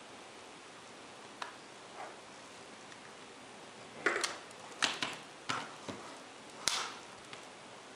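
Plastic LCD bezel of an Acer Aspire One D250 netbook being pried off the screen lid: a couple of faint clicks, then from about halfway a quick run of about seven sharp plastic snaps as its retaining clips let go.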